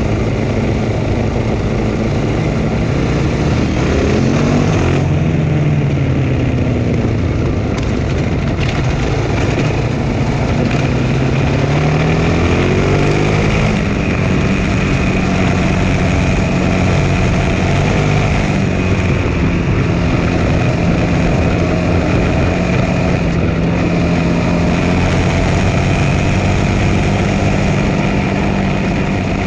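Dual-sport motorcycle engine running at riding speed on a loose gravel track, its pitch rising and falling with the throttle around 3 to 6 seconds in and again around 11 to 14 seconds in, over steady road and wind noise.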